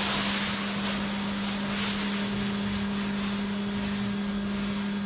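Pressure washer running steadily: a constant motor hum under the hiss of the high-pressure spray hitting wet concrete.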